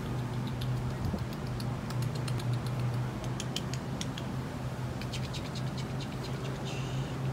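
French bulldog puppies and a piglet moving about on sofa cushions: scattered light clicks and scratches of their feet, over a steady low hum.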